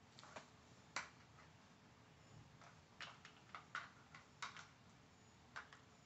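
Plastic lids and sliders of a Dog Brick treat puzzle clicking and clacking as a puppy noses and paws at it. About ten sharp, short clicks: a loud one about a second in, and a quick run of them between three and five seconds in.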